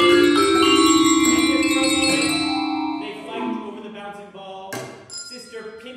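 Live chamber music for vibraphone, small bells and cello: a loud ringing chord at the start, a long note held for about three seconds, then softer scattered notes.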